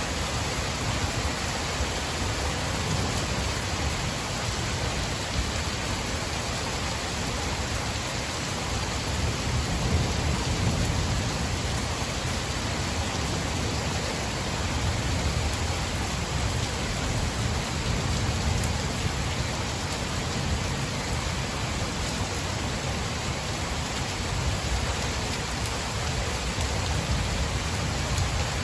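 Steady heavy rain in a thunderstorm, with a low rumble of thunder that swells and fades a couple of times.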